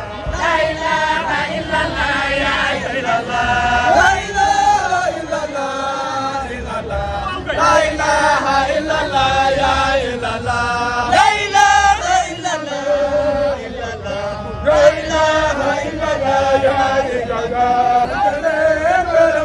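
A group of voices chanting a devotional song together, the melody rising and falling in long phrases with short breaks every few seconds.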